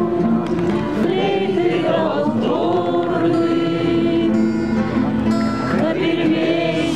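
Group of men singing a song together in unison, accompanied by several strummed acoustic guitars.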